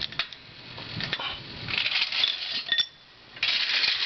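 Light metallic clinks and rattles of jack equipment and tools being handled as the car is let down off its jack after an oil change, with a brief lull a little before the end.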